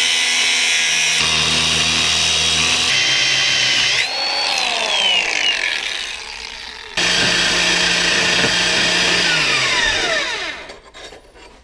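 An electric power tool running at full speed in stretches, with sudden changes in tone. Twice its whine falls in pitch as the motor spins down after being let off, and it fades out near the end.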